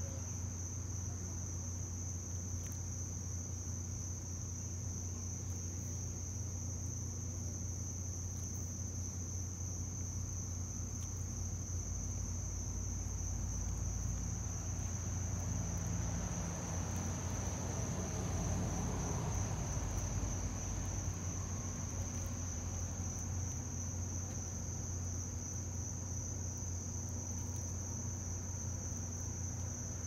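Steady high-pitched insect chorus, a cricket-like trill held at one pitch without a break, over a low steady hum. A soft swell of low noise rises and fades around the middle.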